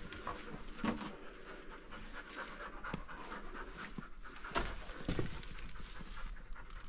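A dog panting, with a few scuffing footsteps on the rocky floor.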